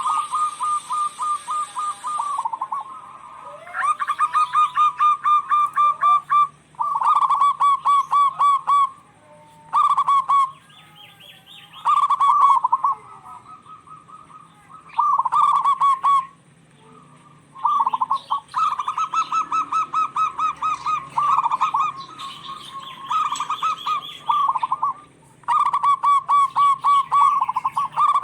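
Zebra doves calling back and forth: repeated bursts of rapid, rolling cooing notes, each burst a second or two long, with short pauses between.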